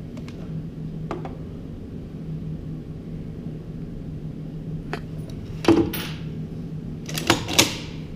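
AKM rifle (7.62×39 mm) fired through a Silent-Steel Immortal suppressor: one suppressed shot a little past the middle, then two more shots in quick succession near the end, each with a brief echo. A steady low hum runs underneath, with a few light clicks before the first shot.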